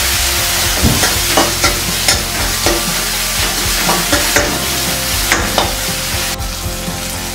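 Metal ladle scraping and tapping around a kadhai, about twice a second, as a tomato-onion tadka masala fries and sizzles in oil and butter. The strokes stop about five and a half seconds in, and the sizzle falls away soon after.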